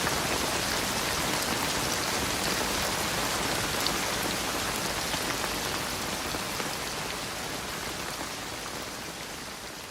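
Steady rain falling, a dense even hiss with scattered drop ticks, fading out gradually over the second half.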